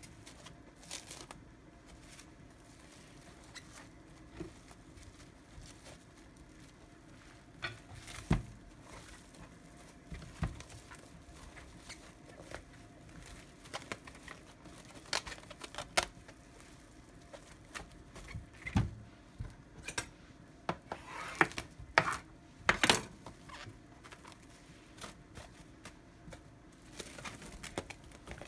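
Plastic cling film crinkling and crackling as it is pulled off the roll and pressed around a food parcel, in irregular bursts with sharp clicks, busiest about three-quarters of the way through. A few dull knocks on a wooden cutting board.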